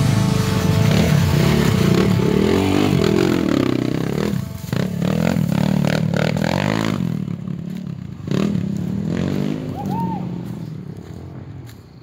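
Enduro dirt bike engines running and revving, their pitch rising and falling, growing fainter near the end.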